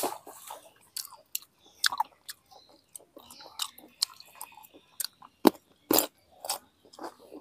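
Close-up mouth sounds of a person chewing food, with wet clicks and crunches. About six seconds in comes a louder crisp bite into a whole fresh cucumber.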